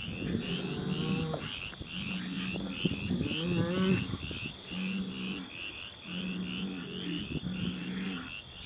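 Chorus of frogs: a high call repeating about three times a second over lower croaking calls, each held for about half a second to a second.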